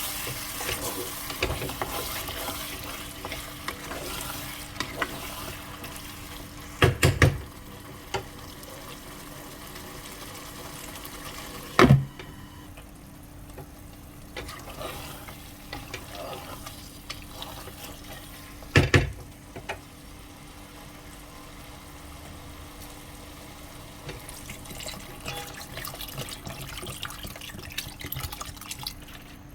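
A pot of aloo gosht curry cooking: stirring over a steady sizzle, with a few loud knocks spread through.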